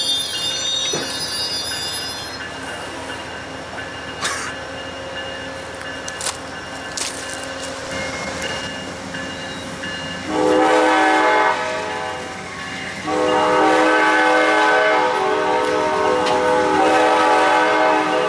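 Amtrak passenger cars rolling past, their wheels squealing for the first couple of seconds. About ten seconds in a locomotive horn gives a short blast, then a long blast from about thirteen seconds on, louder than the passing cars.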